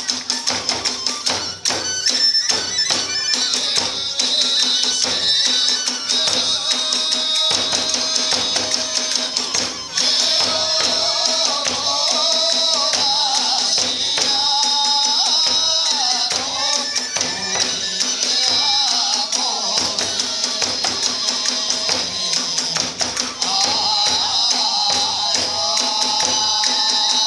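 Iwami kagura hayashi: drums beating a fast, dense rhythm under the constant clash of small hand cymbals, with a bamboo flute melody coming in about ten seconds in.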